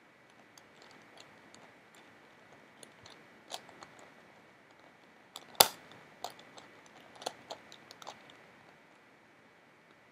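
Plastic Megaminx puzzle being turned by hand: irregular clicks and clacks as its faces are twisted, with one sharp, loud clack a little past halfway.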